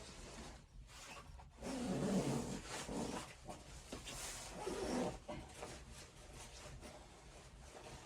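A dog making sounds in two short spells, the first about two seconds in and the second around five seconds in.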